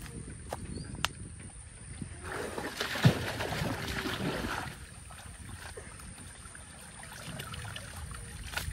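Pond water sloshing and splashing as men wade and work a bamboo-framed push net through it, with a louder stretch of splashing in the middle and one sharp splash about three seconds in.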